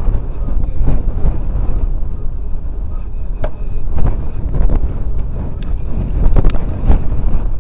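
Strong wind buffeting the microphone: a heavy low rumble that surges and eases with the gusts, with a few short knocks in the middle.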